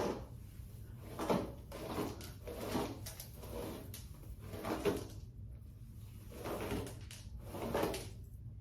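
A brush dragged through long deep-wave human-hair wig hair in repeated strokes, a rustling swish about once a second.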